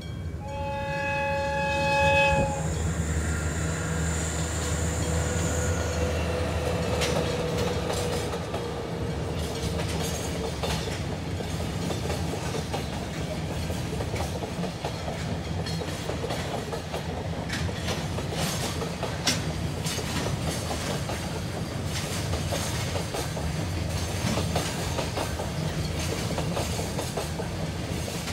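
Diesel-hauled freight train: the horn sounds once for about two seconds near the start. The train then rolls past with a steady low rumble and wheel clicks over the rail joints.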